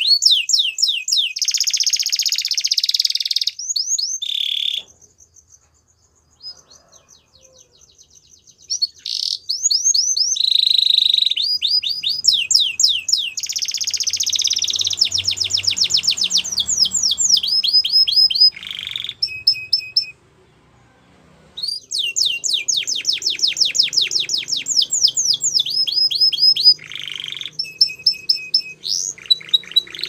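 White domestic canary singing: fast rolling trills and runs of quickly repeated high notes, broken by two short pauses, one about five seconds in and one about twenty seconds in.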